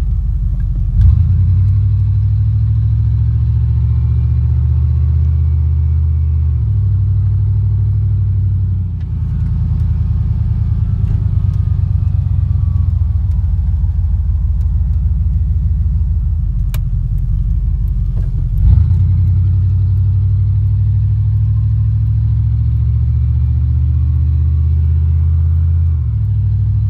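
A motor vehicle driving: a steady low engine and road drone whose pitch shifts several times as the speed changes. There is a brief jolt about a second in and another about two-thirds of the way through.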